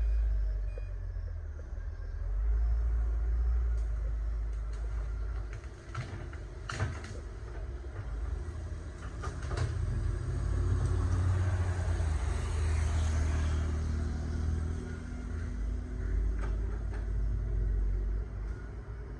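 Excavator's diesel engine running under load, its low rumble rising and falling as it works, with a few sharp knocks about six to ten seconds in.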